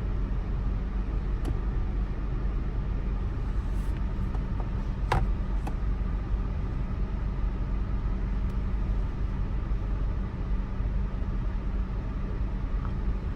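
Car engine idling, heard from inside the cabin of the parked car as a steady low rumble, with a few faint clicks and one sharper click about five seconds in.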